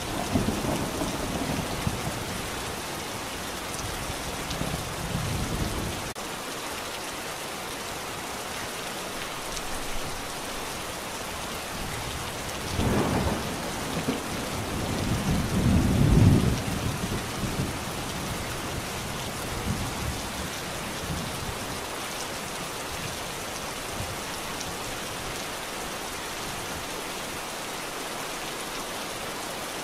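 Steady rain falling, with low rumbles that swell and fade: one through the first few seconds and two more around the middle, the second of these the loudest.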